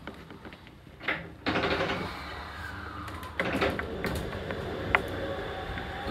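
Shonan Monorail suspended car heard from inside the cab. It is quiet at first, then the running noise sets in suddenly about a second and a half in, with scattered clicks and rattles and a faint steady whine near the end.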